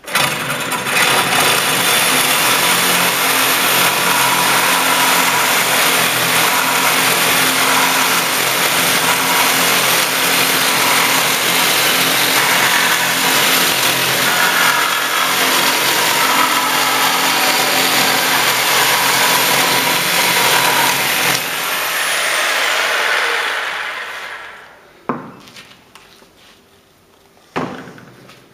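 Corded Hilti reciprocating saw driving a pink carbide-tipped masonry blade through a hard Poroton clay block: a loud, steady rasping cut for about twenty seconds. The motor then winds down, and two short knocks follow near the end.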